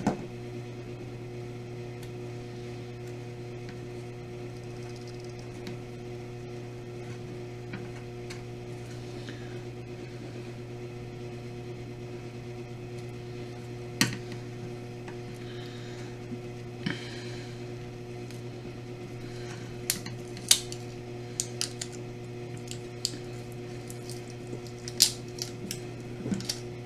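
Small clicks, taps and a brief scratchy rasp from handling a joystick's circuit board and dome switches, probably while its tape is peeled off. They come more often in the last few seconds, over a steady electrical hum.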